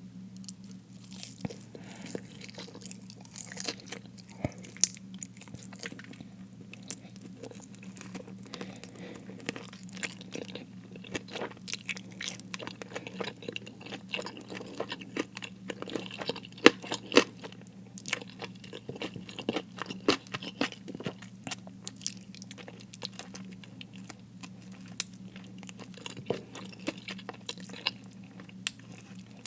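Close-miked chewing of crispy fried food, with many sharp crunches coming irregularly all through, over a faint steady low hum.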